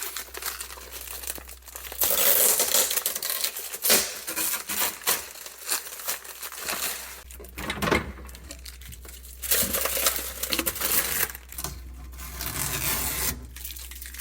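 Plastic packaging being handled: it crinkles and tears in irregular bursts, with brief pauses between them.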